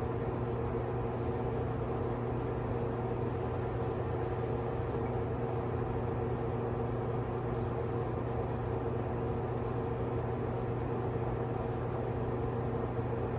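A steady low hum, made of a few constant tones over a faint background noise, unchanging throughout.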